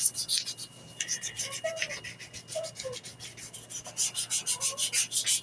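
800-grit sandpaper rubbed back and forth over a mahogany knife handle in quick, even strokes, about five a second, smoothing the wood flush with the metal. The strokes are faint at first and grow louder about four seconds in.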